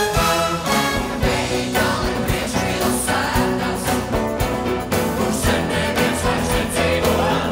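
Live band playing: grand piano with acoustic guitars and bass, to a steady beat.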